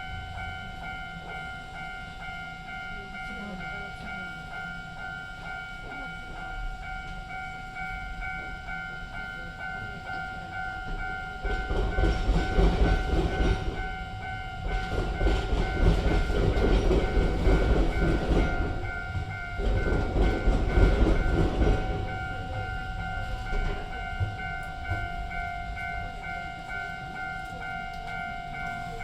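Level-crossing warning bell ringing in a steady pulsing two-tone pattern while an Iyotetsu railway train passes across the crossing. Its wheels rumble and clatter over the diamond where the rails cross the streetcar tracks, starting about twelve seconds in and dying away about ten seconds later.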